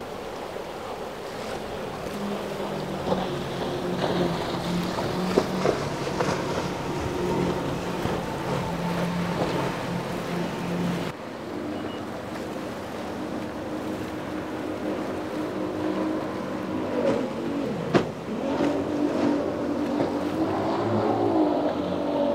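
Outboard-powered speedboats running fast over choppy water: a steady multi-engine drone with spray hiss and a few sharp hull slaps on the waves. The engine note changes about halfway through to a second boat, a twin-outboard catamaran, whose pitch rises and falls near the end.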